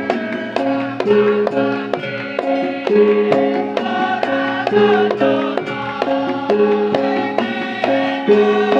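Live gamelan music: metallophones strike a steady run of ringing pitched notes, about two or three a second, over hand-drum strokes.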